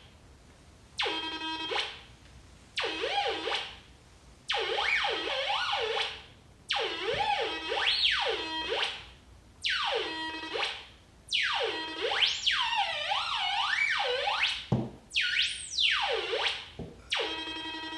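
Pipehorn 100 pipe locator receiver sounding its audio tone in about eight bursts with short gaps, each starting low and gliding up and down in pitch as the wand is swept. The tone is the receiver picking up the transmitter's signal carried on the gas line.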